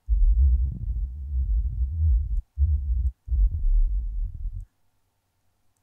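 Helm software synthesizer playing a deep, low patch of sine oscillators whose pitch and filter are wobbled by LFOs and a step sequencer, in a sound meant to be dark bubbling. Three notes are played, a long one and two shorter ones, and it stops a little past two-thirds of the way through.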